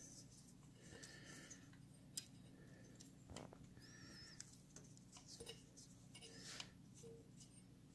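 Faint handling noise, close to silence: light rustling and small clicks as a wire is pushed and worked into place along a motorcycle's front fork.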